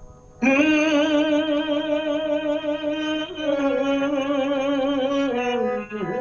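A male singer holds a long wordless note with vibrato, a sung alaap opening a Hindi film song. The pitch steps down slightly about three seconds in and again near the end.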